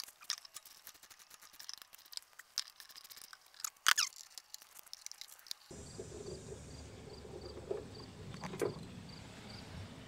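Small metal clicks and taps from a socket and screwdriver backing out the screws of an RV water heater's burner assembly, with a short squeak about four seconds in. From about six seconds in, crickets chirp faintly in the background.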